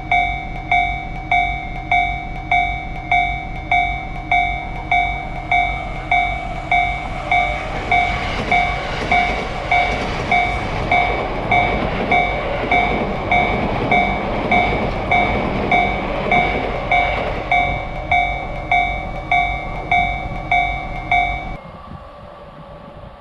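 Japanese railroad-crossing warning bell dinging steadily at a little over two strikes a second while a train passes, its rumble of wheels on the rails building up in the middle and fading away. The bell cuts off suddenly near the end.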